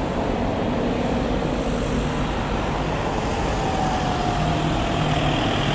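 Württemberg T3 steam locomotive standing with steam up, a steady noise heavy in the low end with no distinct beats.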